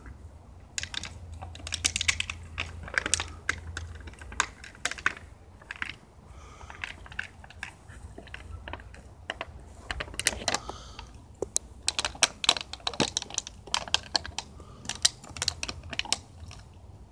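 A dog chewing and mouthing an empty plastic water bottle: irregular crackles and crunches of the thin plastic, coming in clusters with short pauses.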